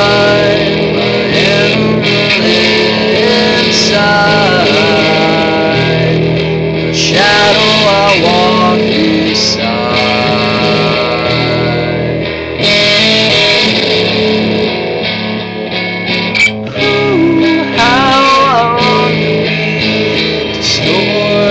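Music: an instrumental passage of a song led by guitar, its lead line bending up and down in pitch.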